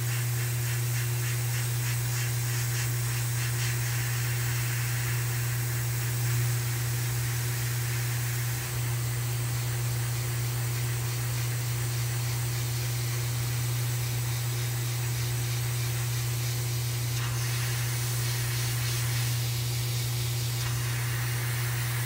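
Airbrush spraying paint with a steady hiss of air, over a steady low hum.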